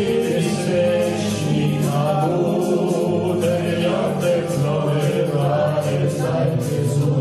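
Mixed choir of men and women singing together, with sustained held notes that move from pitch to pitch.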